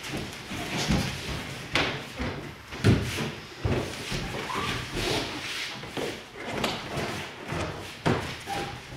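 Thuds of bodies, knees and hands landing on foam mats and bare feet stepping as aikido partners throw and pin each other. Several separate impacts, the loudest about three seconds in.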